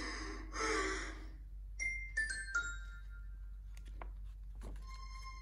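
A short page-turn chime from a read-along storybook recording: a quick run of four or so bell-like notes stepping down in pitch, signalling the reader to turn the page. It is followed about two seconds later by a few soft clicks and rustles of the book's paper page being turned.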